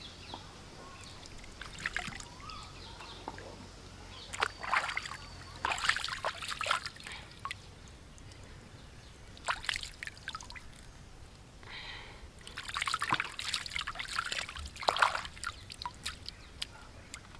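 Hands splashing and swishing in shallow puddle water while washing tomatoes and ginger root, in irregular bursts of splashes with trickling and dripping between them.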